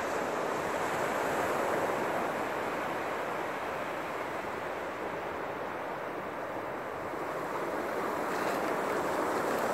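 Ocean surf breaking on a sandy beach: a steady wash of waves that swells slightly a second or two in and again near the end.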